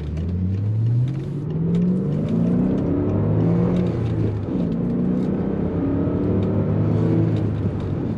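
BMW 545i's V8 with a budget aftermarket muffler, heard from inside the cabin while the car is driven: the engine note climbs, falls back at a gear change, climbs again, then drops and holds steady from about halfway. A bit louder in the car but not droney, with no rattles.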